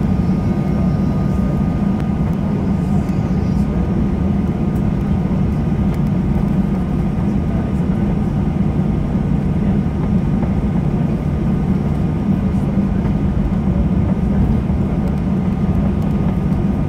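Jet engines of a Ryanair Boeing 737 heard inside the cabin while the plane taxis: a steady low hum under a rush of noise, with a thin steady whine above it.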